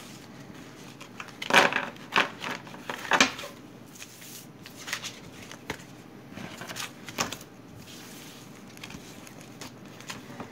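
Tarot cards being gathered up off a table and shuffled by hand: scattered short slaps and papery rustles, with the loudest cluster a couple of seconds in.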